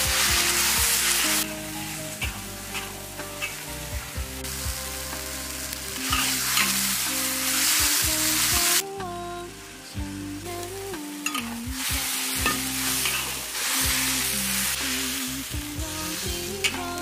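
Vegetables sizzling as they are stir-fried in a hot wok over a wood fire, a metal spatula scraping and clicking against the wok. The sizzle swells loud and drops back several times.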